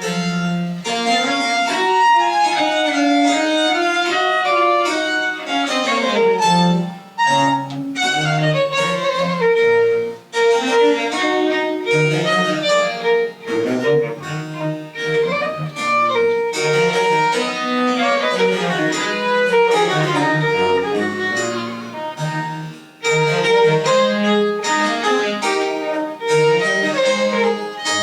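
French Baroque chamber music played live: a violin melody over a moving bass line, with brief breaks between phrases.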